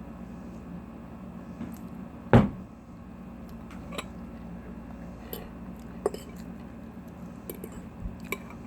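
Utensils knocking and clinking on a plate or dish during eating: one loud knock about two seconds in, then a few light clicks, over a steady low hum.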